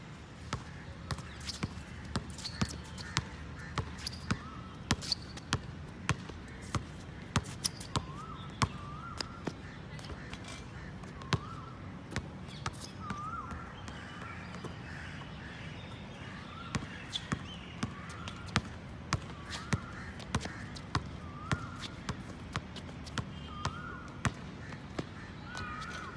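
A basketball being dribbled on a paved outdoor court: sharp, irregular bounces, one to three a second. A bird calls over and over in short rising chirps through much of it.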